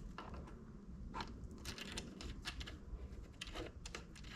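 Faint, irregular light clicks and taps, a few a second, as of small hard parts being handled.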